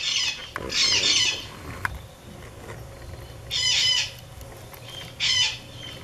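A pet parrot squawking four times with loud, high calls: two in quick succession at the start, then one more a little before four seconds in and another just past five.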